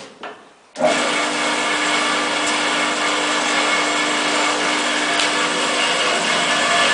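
Optimum S275G metal-cutting bandsaw switched on just under a second in, after a couple of light clicks; its motor and blade then run steadily with a constant hum and whine.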